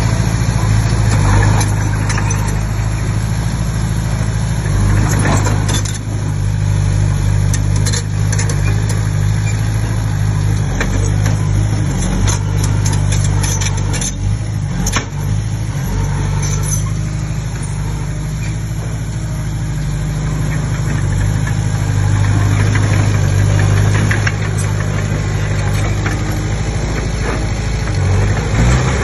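Komatsu D20P bulldozer's diesel engine running steadily, with scattered short clanks and scrapes over it.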